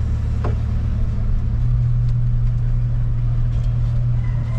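Car engine running at low speed, heard from inside the cabin as a steady low hum, with a faint high tone coming in near the end.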